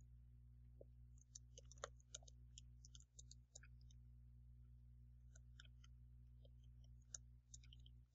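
Faint computer keyboard typing: quick runs of key clicks about a second in and again past the middle, over a low steady hum.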